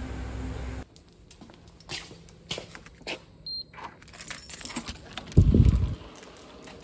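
A keycard on a lanyard rattling and clicking against a door's electronic lock, with one short beep from the lock about three and a half seconds in. A loud low thud follows as the lever handle is pushed and the door opens. A second of steady outdoor background noise comes before it.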